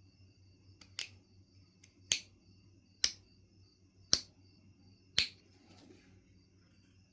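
Knife River Flint being knapped: five sharp clicks about a second apart, each a flake coming off the stone.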